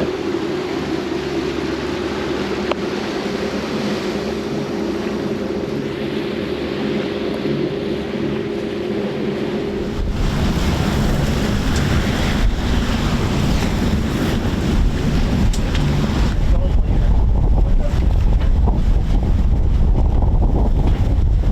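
Sailboat motoring into a strong headwind and chop: a steady engine hum over rushing water, then, about halfway, heavy wind buffeting the microphone over waves and spray.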